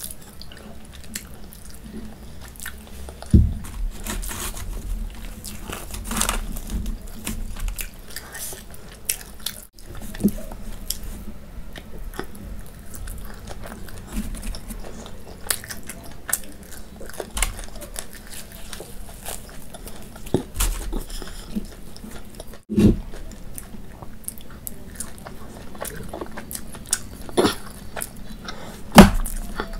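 A person chewing and eating close to the microphone: soft kadhi pakora and roti, with frequent short wet mouth clicks. A few louder clicks stand out, about three seconds in, past the middle and near the end.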